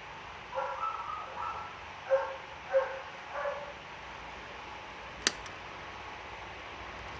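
A dog barking five or six times in quick succession, then a single sharp click a couple of seconds later.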